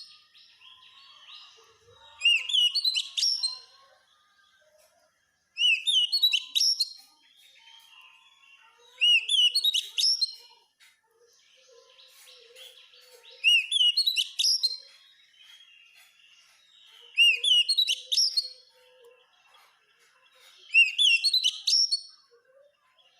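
Oriental magpie-robin (kacer) singing loud phrases of sweeping, whistled notes, six times at roughly even intervals of about three and a half seconds. Soft twittering fills the gaps between the phrases.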